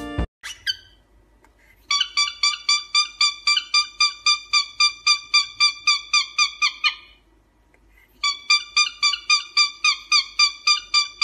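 Cockatiel chirping a rapid run of identical whistled notes, about five a second, breaking off once for about a second near the middle before starting again.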